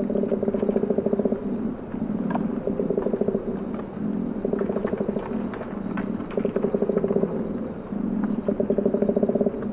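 Koala bellowing: a deep, rasping, pulsing call that switches back and forth between a lower snore-like phase and a higher belch-like phase, about five times. This call is typically made by males in the mating season to announce themselves and claim territory.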